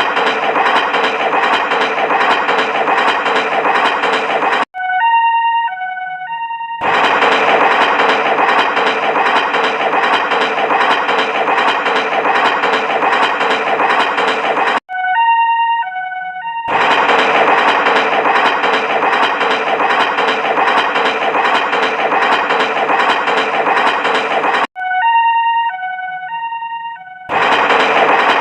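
Looped train sound: a steady chugging rumble of about eight seconds, then about two seconds of a horn sounding two alternating notes, repeating every ten seconds or so, three times.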